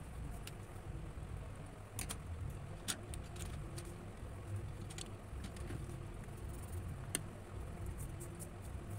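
Coloured pencils scratching on drawing paper, with a few sharp clicks of pencils against the table, over a steady low rumble.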